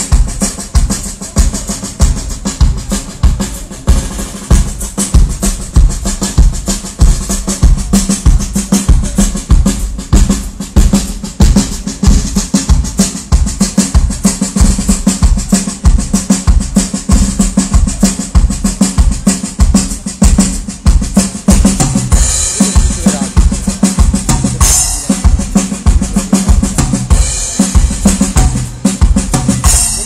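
Drum kit playing a steady beat during a stage sound check: regular bass-drum strokes with snare and cymbals, the cymbals louder near the end.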